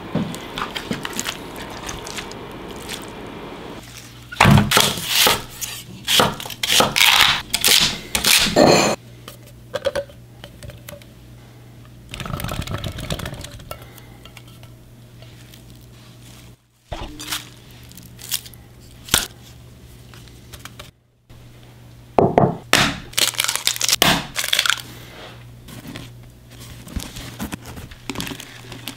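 Close-up food-preparation sounds in clusters: crunching, clattering and knocks as ingredients are handled, poured and dropped into a glass bowl, with a steady low hum underneath.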